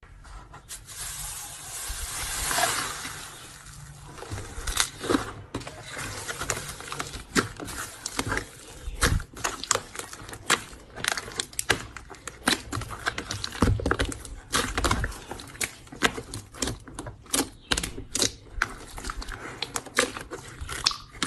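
Slime being squeezed and worked by hand, making many irregular sharp clicks and crackling pops, with a longer swelling rush of sound about two seconds in.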